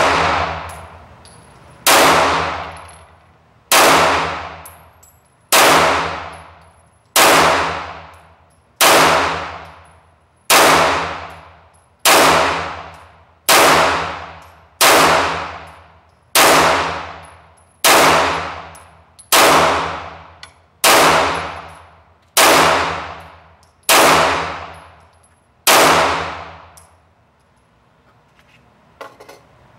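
Glock 34 Gen 4 9mm pistol fired in slow, deliberate single shots, about sixteen of them, one every second and a half or so. Each shot rings out and dies away over more than a second in the reverberant indoor range. The shooting stops a few seconds before the end.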